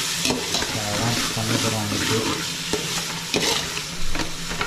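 Sliced onions sizzling as they are sautéed in oil in a large metal pot, with a ladle stirring them and scraping the pot in several separate strokes.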